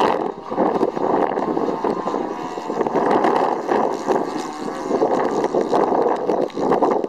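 Gusty wind buffeting the microphone, rising and falling in level, over the distant drone of a Saito 82 four-stroke glow engine on a radio-control Acrowot flying overhead. The level drops just at the end.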